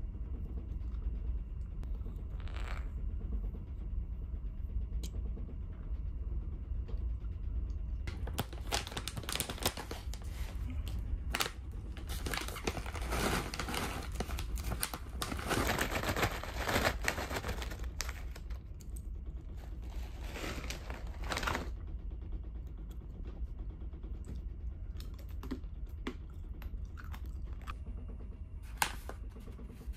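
Plastic snack bag crinkling and rustling as it is handled, heaviest from about 8 to 22 seconds in, with a few lighter rustles and clicks later. A steady low hum of the ferry's engines runs underneath.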